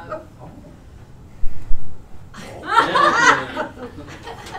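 A couple of low thumps, then a short burst of people laughing in the classroom about halfway through.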